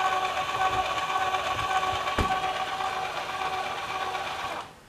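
Electric linear actuator on a solar tracker's elevation axis running as it retracts its arm: a steady whine with a few level tones and a single click about two seconds in. It stops suddenly near the end, when the arm is all the way retracted.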